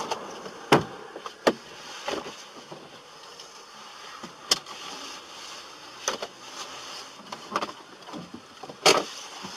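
Steady rushing road noise of a moving car, broken by a handful of short, sharp clicks and knocks; the loudest come about a second in and near the end.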